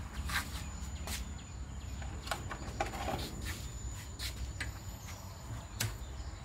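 Scattered light clicks and knocks, roughly one every half second to second, from handling a lighter and the gas valve at a brick-built gas burner before lighting it. A faint steady high-pitched tone runs underneath.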